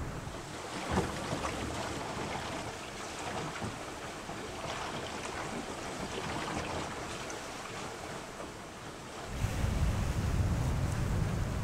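Sea water rushing and splashing along a sailing catamaran's hulls as it sails at speed. Wind buffeting on the microphone drops away just after the start and comes back heavily about nine seconds in.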